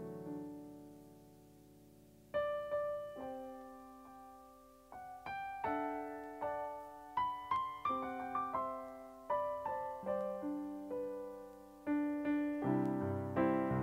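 Solo piano playing a slow, quiet tune. A chord dies away over the first two seconds, then single notes and light chords resume, growing fuller near the end.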